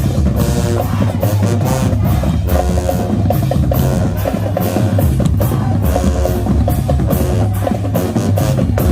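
High school marching band playing at full volume. The drums drive a dense, steady beat over heavy bass drum, with repeated pitched horn figures on top.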